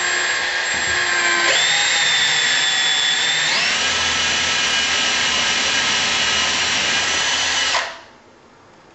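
Power drill boring upward into the plaster above a window, with metal behind the plaster. The motor whine steps up in pitch twice and stops abruptly about a second before the end.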